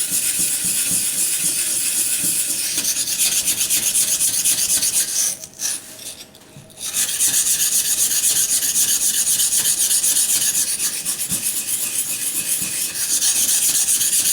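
Steel knife blade being stroked rapidly back and forth on a wet sharpening waterstone, a gritty scraping that pauses for about a second midway. The stone is grinding down the edge to remove chipping.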